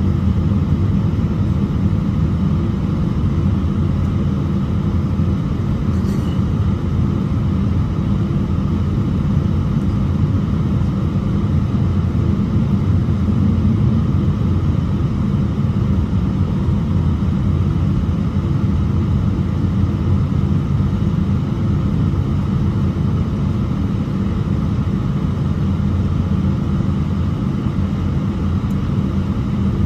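Steady low rumble inside a jet airliner's cabin as it taxis, the engines running at taxi power.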